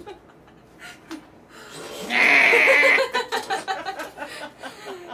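Women laughing: a loud, high, drawn-out shriek of laughter about two seconds in, then quick pulsing laughter.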